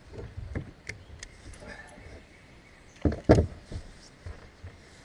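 Scattered clicks and knocks, with a loud double thump about three seconds in.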